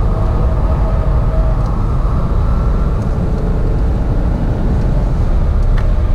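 A car driven hard at speed, heard from inside the cabin: a steady low rumble of engine, tyre and road noise with a faint engine tone above it.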